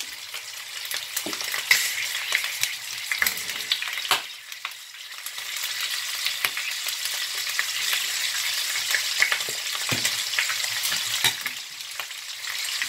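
Pieces of pork searing in hot oil in a pot, a steady sizzle thick with small crackles, with a few louder knocks now and then. This is the meat being browned and sealed before the rest of the ingredients go in.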